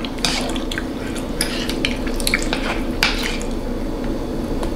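Eating utensils clicking and scraping against a dish: a dozen or so short, sharp clicks at irregular intervals, over a steady low hum.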